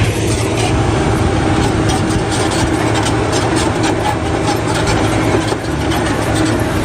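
Toy bulldozer switched on and running: a steady mechanical drone with fast clicking, stopping shortly after the end.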